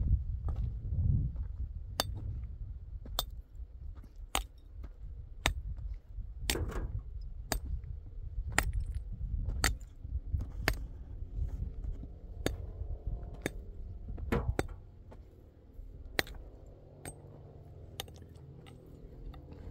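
Metal wheelbarrow clinking and rattling on a stony dirt track, sharp metallic clinks about once a second over a low rumble.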